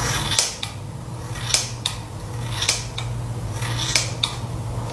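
Scissors snipping through hair: crisp snips in about four pairs, roughly one pair a second, over a steady low hum.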